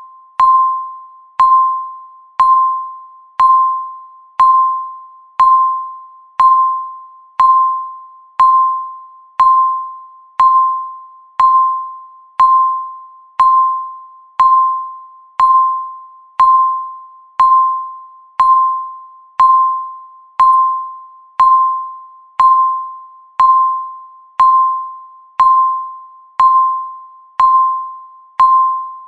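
Countdown timer beeping once a second: a single-pitched electronic beep that starts sharply and fades away before the next, repeating steadily.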